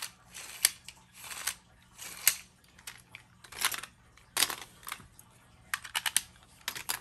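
Plastic Beyblade launchers and a launcher grip being handled: a few short scraping swishes, then a cluster of sharp plastic clicks near the end.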